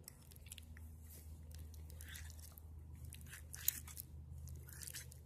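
A person chewing a mouthful of cheese-and-bean enchilada, with faint scattered mouth clicks.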